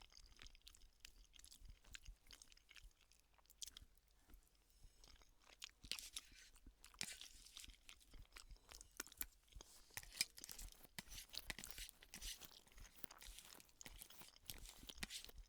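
Faint mouth sounds of a person chewing a mouthful of a chicken tikka ready meal: small wet clicks and crackles, scattered irregularly throughout.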